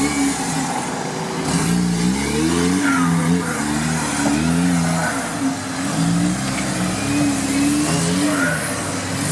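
Off-road 4x4 engine revving hard and unevenly as the vehicle claws its way up a deep muddy slope, its pitch rising and falling again about every second.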